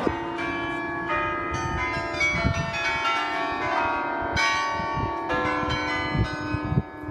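Tower bells of the Oude Kerk playing a slow tune: bell notes at different pitches struck one after another, each ringing on under the next.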